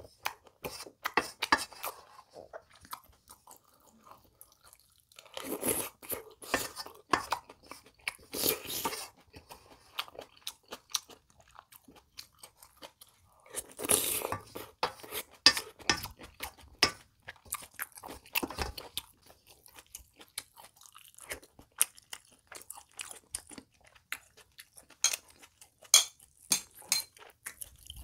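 Close-miked eating of pork kimchi stew: broth slurped from a spoon in several noisy gulps about a second long, with chewing and the spoon scraping and clicking against a stainless steel pot in between.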